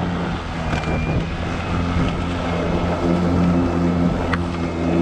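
EGO cordless electric self-propelled lawn mower running steadily, its motor and spinning blade humming under load as it cuts dense, tall grass in mulching mode.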